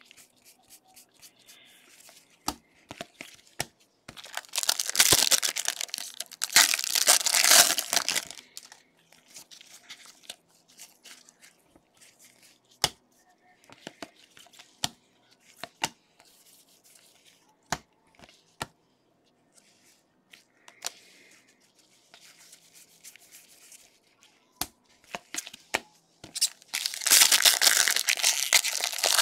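Trading-card pack wrappers being torn open and crinkled, in two loud spells of tearing, one about four seconds in and one near the end. Between them come soft rustles and sharp clicks as the cards are slid and flicked through by hand.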